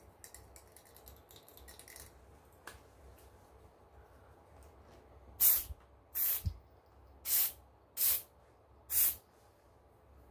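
A small pump-spray bottle is spritzed five times, each a short hiss, about a second apart, the first the loudest.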